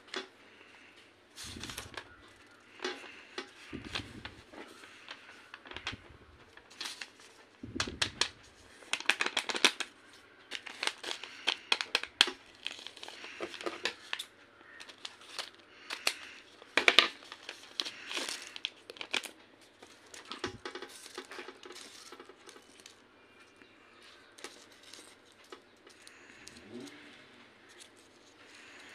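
Paper cards and envelopes being handled and unfolded by hand: repeated bursts of paper rustling and crinkling with sharp clicks, busiest in the middle.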